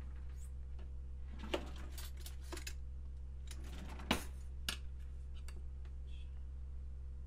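A kitchen drawer being handled and opened, with a series of light clicks, scrapes and metallic clinks, the sharpest about four seconds in, over a steady low hum.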